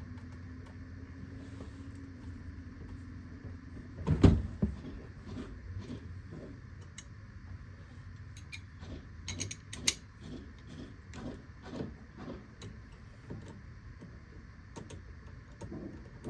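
A tight screw at the steering wheel being wrenched loose: a loud crack about four seconds in as it breaks free, then a run of light clicks about two a second as the wrench keeps turning it out.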